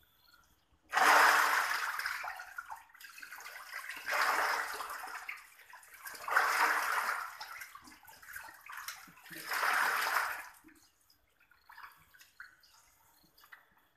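Water splashing and sloshing in four separate surges, each starting suddenly and dying away over a second or two.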